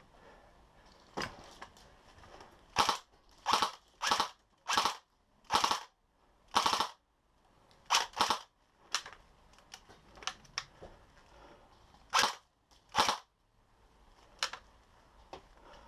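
Airsoft guns firing a string of short bursts, about fifteen in all, each lasting a fraction of a second, with the densest run of fire from about three to seven seconds in.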